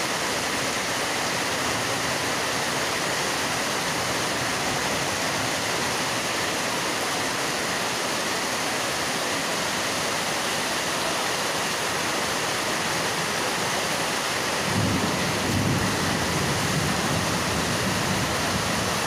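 Heavy rain pouring steadily onto a flooded street, a dense, even hiss. A low rumble joins about fifteen seconds in.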